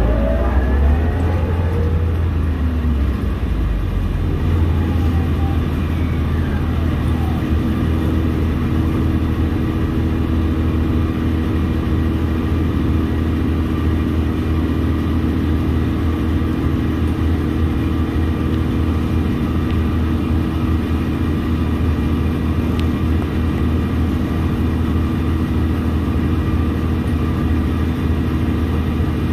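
Orion VII Next-Gen transit bus heard from inside the cabin: a whine falling in pitch over the first few seconds as the bus slows, then the engine idling steadily while the bus stands at a stop.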